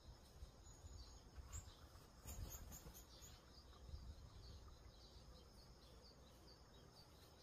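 Near silence: faint outdoor ambience with soft, repeated high chirps and a low background hum.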